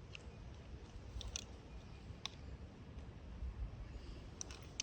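A few faint, scattered clicks from a shotgun slug and a Mossberg 590 pump shotgun being handled and loaded, over a low steady background rumble.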